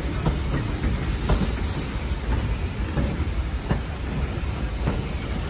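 Steam train pulling past a station platform: the locomotive and its coaches rolling by with a steady rumble, and wheels clicking irregularly over the rail joints.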